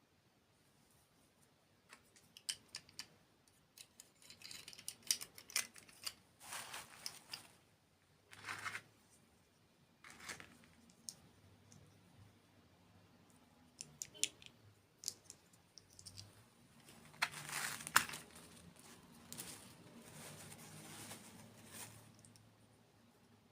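Close-miked ASMR crinkling and crackling with scattered sharp clicks, coming in irregular bursts, loudest about five seconds in and again near eighteen seconds.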